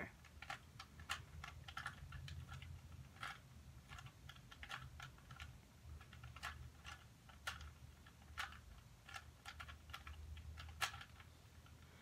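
Faint, irregular plastic clicks and clacks of a 3x3 Rubik's cube, a few a second, as its layers are turned through a move sequence repeated over and over.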